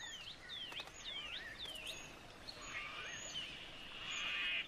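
Bird calls in bush ambience: a quick series of sharp, swooping whistles, about two or three a second, over the first two seconds. Then a high buzzing trill with a few rising chirps swells and cuts off at the end.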